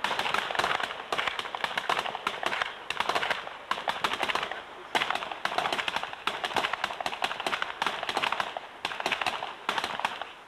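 Several pistols firing fast series of shots at the same time, many shots a second overlapping into a dense crackle with brief lulls.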